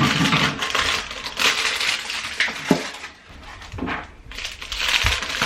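Paper wrapping crinkling and rustling as it is pulled open by hand, in several bouts with small sharp crackles.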